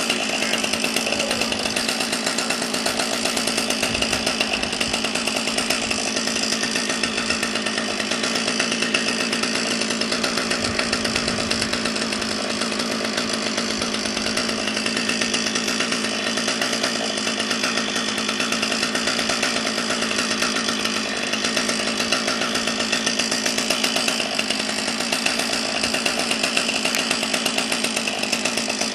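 Two-stroke chainsaw running steadily at high speed, its engine note holding constant throughout.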